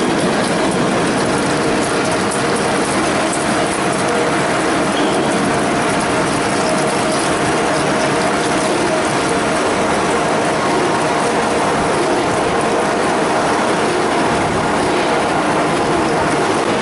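Vista CDMP2012 CNC plate drilling machine's spindle drilling through a stack of metal plates under coolant spray: a loud, steady cutting noise with a constant mid-pitched whine.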